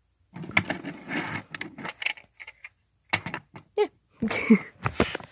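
Clicks and rustles of a plastic Transformers toy being handled, in short irregular bursts.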